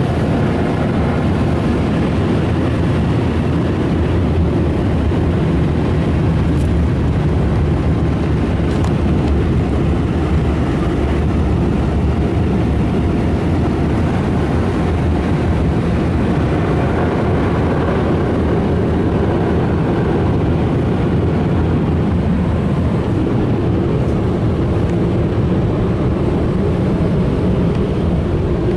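Air dryers of a Ryko Softgloss Maxx automatic car wash blowing over the car, heard from inside the cabin: a loud, steady rushing noise.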